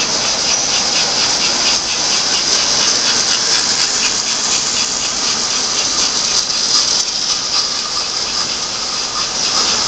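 Toy electric trains running on metal three-rail track: a loud, steady high whine and hiss of motors and wheels on the rails, with a rapid rhythmic clicking.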